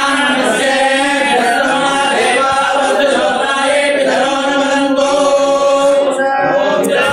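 A group of voices chanting a devotional chant together, continuous and steady, in a temple shrine.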